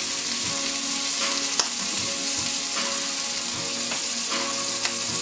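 A few pieces of bacon sizzling steadily in a nonstick frying pan, nearly done.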